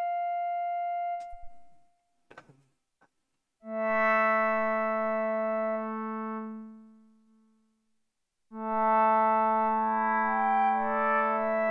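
Arturia MiniFreak synthesizer playing its Wave Shaper oscillator through the filter. A held high note fades out after about two seconds, followed by a few faint clicks. A lower note then sounds and fades out. From about eight seconds in, a fuller chord plays, with its upper notes changing.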